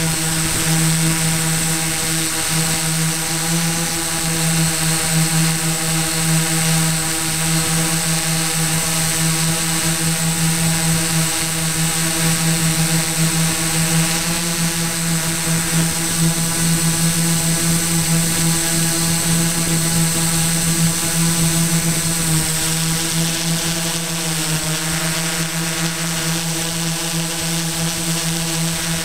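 Drone Easy Fly drone's electric motors and propellers running in flight, a steady buzzing whine heard close up from the onboard camera, dipping slightly in pitch about five seconds before the end.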